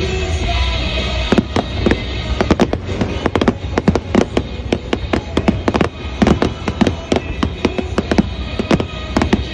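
Fireworks finale barrage: a dense run of sharp bangs and crackles, several a second, starting about a second in, over music playing underneath.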